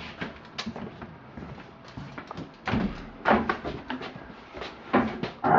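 A house door being opened and bumped, with a few knocks and thumps and footsteps; the loudest knocks come about two to three seconds in and again near the end.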